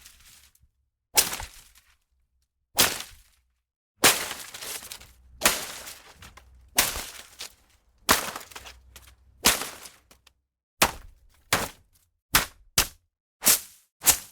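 Leafy plants and undergrowth being struck and slashed, a series of about a dozen sharp swishing hits, each with a brief rustle of leaves after it. The hits come faster near the end, about two a second.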